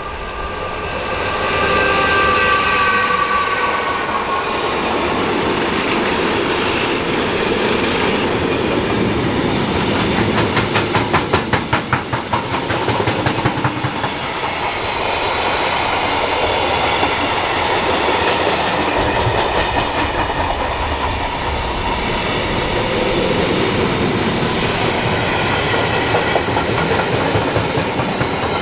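An electric train passing close by at speed. Its motor whine falls slightly in pitch in the first few seconds, then the long train keeps running past with steady wheel-on-rail rumble and a rhythmic clickety-clack of wheelsets over the track near the middle.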